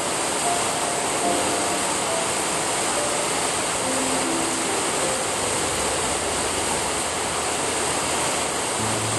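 Steady rain hiss, with a few soft, scattered music notes faint beneath it.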